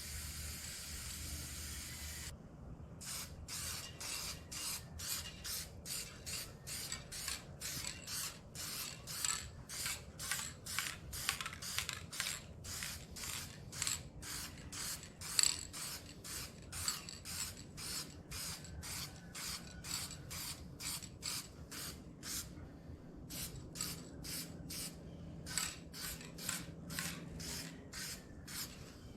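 Paint spraying in short bursts: a steady spray for about two seconds, then a long run of quick hissing strokes about two a second, with a brief pause near the end.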